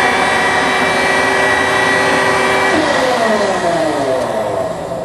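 Vertical baler's 10 horsepower electric motor and hydraulic power pack running with a steady whine, then, a little over halfway through, switching off and winding down in falling pitch at the end of the baling cycle.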